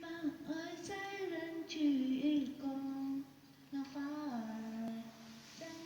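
A high singing voice holding long notes that glide from one pitch to the next, with a short pause about three seconds in.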